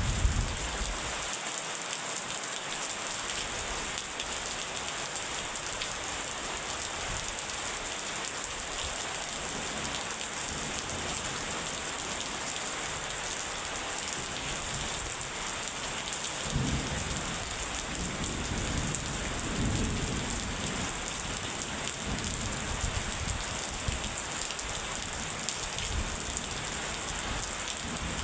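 Steady rain falling as an even hiss, with low rolling rumbles of thunder over a few seconds about two-thirds of the way through.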